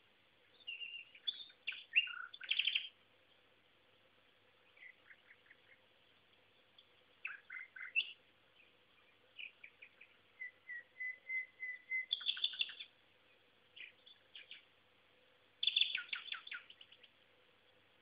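Common nightingale (Luscinia megarhynchos) singing: separate song phrases with short pauses between them, mixing quick clicking trills with a run of repeated piping notes that swell in loudness around the middle. Heard through a basic phone microphone.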